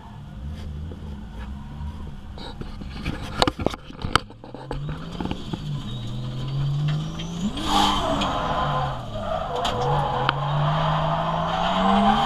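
Drift car's engine heard from inside the cabin, pulling away and accelerating: its pitch climbs, drops sharply at a gear change about halfway through, then climbs again. A few sharp knocks come just before it starts pulling.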